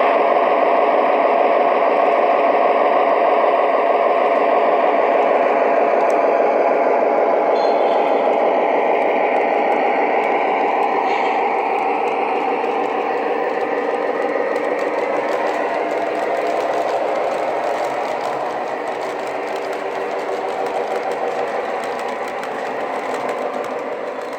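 Lionel TMCC C420 model diesel locomotive running on its track: the diesel engine sound from its onboard speaker mixed with motor and wheel noise, steady and slowly getting quieter over the second half.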